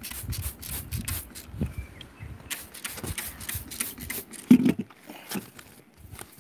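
Stones clacking and coarse gravel scraping as a gloved hand digs a river stone out of sandy grit, a string of short knocks and scrapes with one louder thump about four and a half seconds in.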